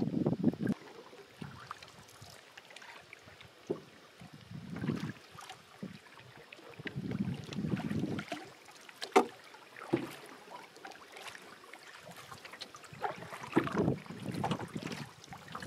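A canoe being paddled: water swishing in uneven swells every few seconds, with a few sharp knocks and some wind on the microphone.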